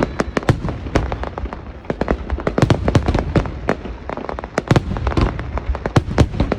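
Aerial fireworks display: a dense, irregular barrage of sharp bangs and crackles, several a second, over a steady low rumble of distant bursts.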